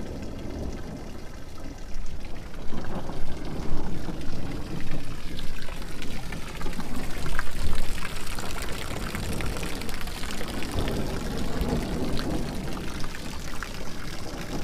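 Heavy rain with runoff pouring off a roof edge and splashing onto the ground, a steady rush and splatter that grows louder about two seconds in.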